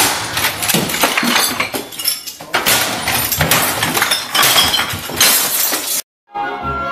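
A desktop computer and glass objects on a desk being smashed: repeated crashes, breaking glass and clattering debris, cutting off abruptly about six seconds in. Music starts near the end.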